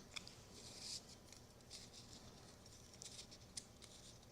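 Near silence with faint rustling and a few small clicks: hands wrapping Teflon tape around the flexible metal exhaust header of a model-plane engine.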